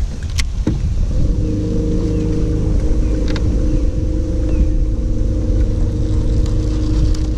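Electric bow-mounted trolling motor running at a steady speed, a hum made of several steady tones that sets in about a second in, with a few short clicks.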